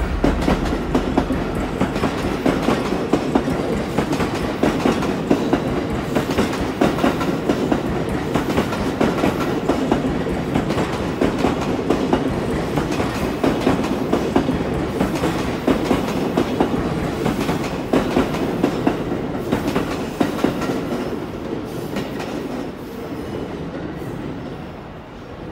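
Train running past a station platform, its wheels clattering rapidly over the rail joints, the sound easing off toward the end.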